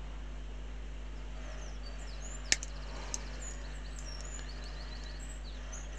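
Small pliers working a plastic model-kit part: one sharp click about two and a half seconds in and a fainter one just after, over a steady low hum.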